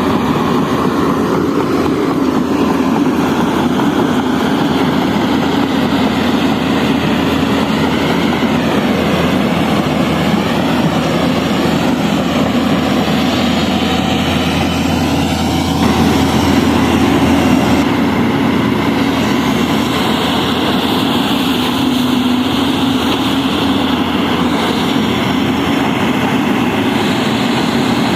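Excavators' heavy diesel engines running steadily under load, with a whine that wavers up and down in pitch through the middle.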